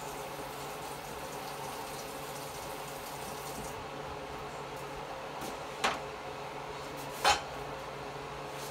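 Steady whoosh and hum of an overhead range hood fan running above a gas stove. Two sharp knocks about a second and a half apart, the second the louder, as a skillet is shifted on the stove grate.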